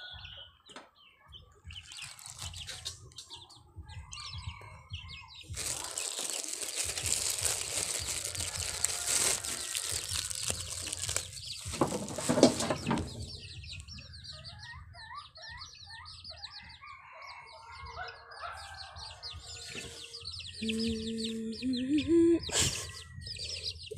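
Young chickens peeping and clucking around their feed, with many short high calls in the second half. About five seconds in comes a few seconds of loud rustling noise.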